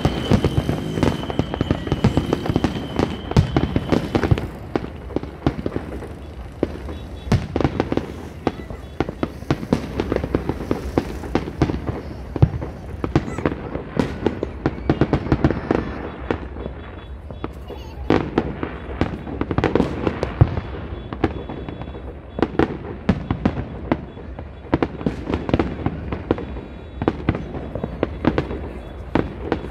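Aerial fireworks going off in quick succession: a dense stream of bangs and crackles, with a thin steady high whistle during the first four seconds.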